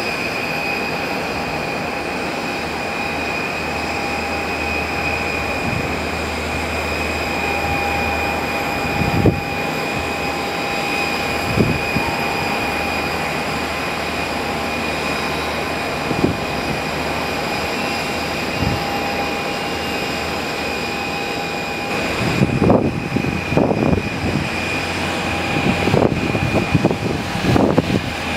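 Steady mechanical whine over a low hum, with a few single thumps and, from about 22 seconds on, irregular crackling bursts.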